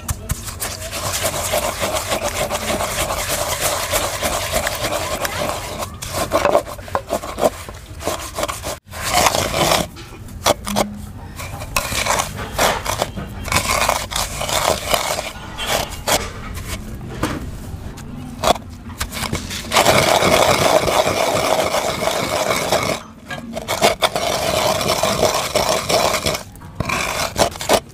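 Wooden pestle grinding and scraping a gritty seed and sugar mix round a clay bowl, continuous rubbing broken by a few short pauses. It is the hand-grinding of sardai ingredients.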